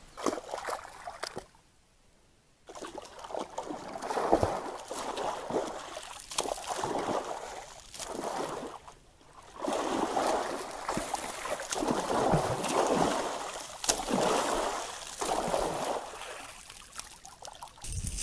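Red deer pawing and stamping in a shallow muddy forest pool, splashing water in repeated irregular sloshing bursts.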